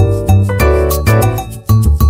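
Background music with a steady beat and a prominent bass line.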